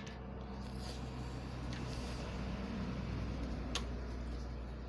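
Light handling of a plastic dish antenna, with a couple of faint clicks from the parts, over a steady low hum.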